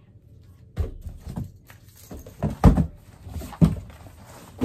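Shoes being handled and knocked against cardboard boxes while sorting: a run of dull thumps and knocks with rustling between them, the loudest thump a little past the middle.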